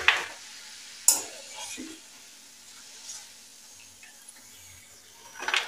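Crisp fried cashew-shaped namak pare tipped from a steel wire strainer onto a brass plate, clattering and clinking against the metal. There is a sharp clink about a second in and another clatter near the end.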